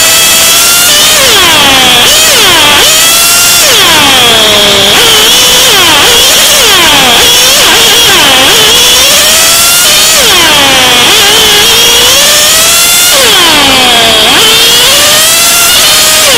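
Racing engine heard onboard at high revs and very loud. Its pitch sweeps down and climbs back up again and again as the vehicle slows for corners and accelerates away.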